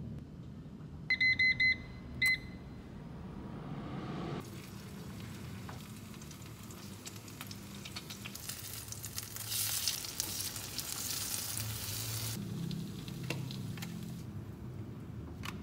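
A kitchen appliance beeps four times in quick succession about a second in, then once more. Then corn fritter batter sizzles in oil in a nonstick frying pan, loudest midway through.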